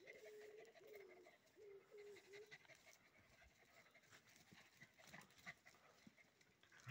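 Faint sounds of dogs play-fighting: a wavering whine-like call, repeated three times in the first two and a half seconds, then scattered light scuffs and clicks.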